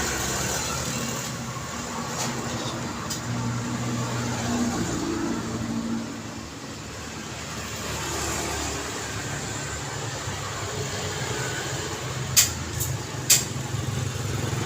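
Road traffic: vehicles passing continuously with low engine hum and tyre noise, easing off briefly about six seconds in. Near the end come two sharp knocks about a second apart, the loudest sounds here.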